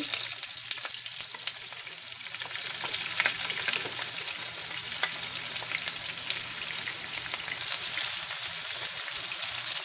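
Onions frying in hot oil with whole spices: a steady sizzle with frequent small crackles and pops, the onions freshly added and meant to cook down to golden brown.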